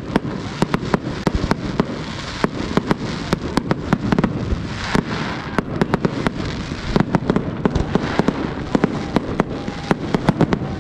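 Fireworks display: a rapid string of sharp bangs, several a second, over continuous crackling, coming thicker in the second half.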